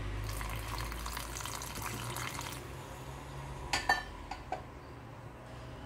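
Water poured into a stainless-steel mixer-grinder jar of ground masala paste, splashing for about two and a half seconds, followed by a few light knocks.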